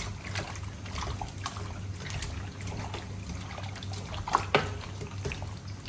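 A hand kneads raw mutton pieces coated in spice paste in a stainless steel bowl, making soft wet squelches and small irregular clicks. Two sharper clicks come about four and a half seconds in.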